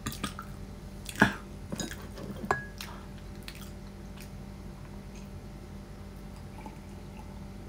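A ceramic mug being handled: a few knocks and clinks over the first three seconds, the loudest about a second in, and one with a short ring.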